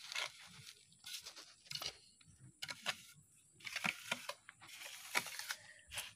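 Wet cement mortar being scraped and smoothed over a concrete ornament mould: several irregular, gritty scraping strokes.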